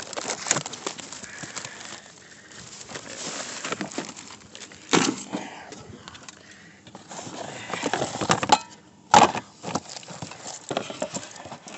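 Salvaged items being handled and set into a plastic storage tote: rustling, clinks and knocks, with two louder knocks about five seconds in and again about nine seconds in.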